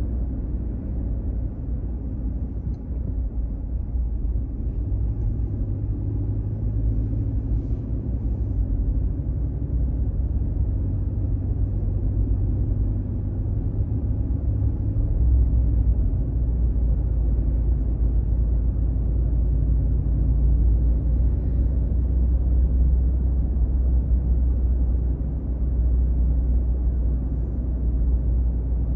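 Steady low rumble of a car's engine and tyres heard from inside the moving cabin, growing a little louder after the first few seconds.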